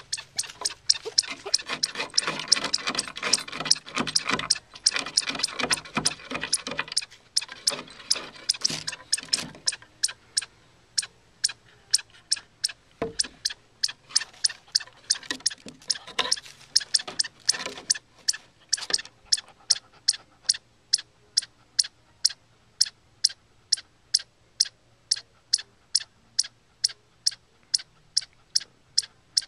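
Chipmunk under a deck giving its sharp, high alarm chip over and over, steady at about three calls a second. For the first ten seconds or so it is mixed with busier scratching and clicking from the dog working at the gap in the boards.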